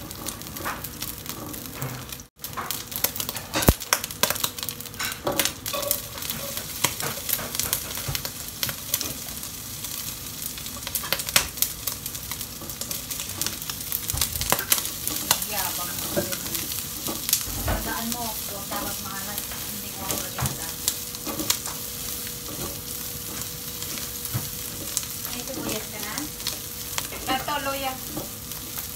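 Oil sizzling and crackling in a wok as diced meat and aromatics are stir-fried, with a spatula scraping and knocking against the pan. The sound breaks off for a moment about two seconds in.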